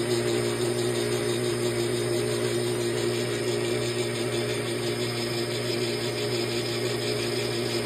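Metal lathe running steadily while turning down a steel arbor held in an ER32 collet chuck: an even hum of motor and drive with the noise of the cut over it.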